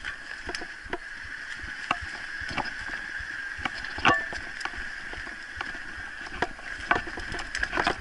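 Mountain bike rolling downhill over a leaf-covered dirt trail: steady tyre and rolling noise broken by irregular rattles and knocks from the bike as it hits roots and rocks. The loudest clunk comes about four seconds in, with a flurry of knocks near the end as the trail turns rocky.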